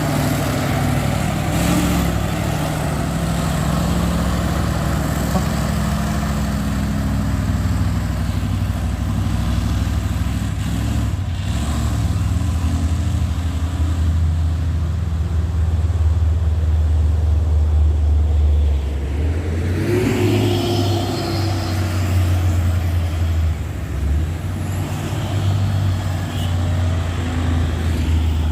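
Heavy truck engine running under load, a steady low drone, with a shift in the engine sound about twenty seconds in as another engine's pitch slowly falls.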